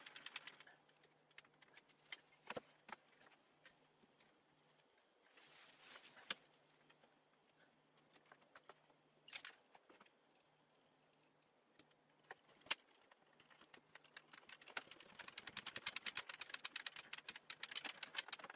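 Faint, scattered knocks and clicks of particleboard bookcase parts and hardware being handled, then from about 15 seconds in a fast run of rapid clicking as screws are driven into the plastic angle brackets with a screwdriver.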